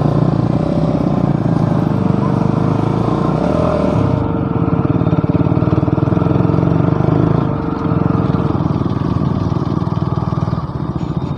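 Motorcycle engine running steadily while riding, with a thin steady whine that holds from about two seconds in until past the middle; the engine note eases briefly about seven and a half seconds in.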